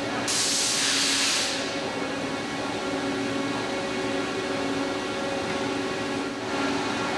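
A loud burst of hissing lasting about a second, starting just after the beginning, with a fainter hiss near the end, over a steady droning hum.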